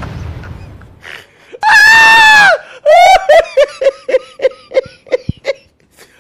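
A high-pitched, voice-like cry held for about a second, followed by a quick run of short falling yelps, about four a second, like laughter.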